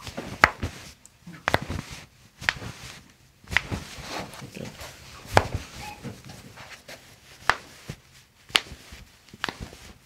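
Sharp clicks from a handheld chiropractic adjusting instrument being fired at the feet and ankles, coming roughly once a second.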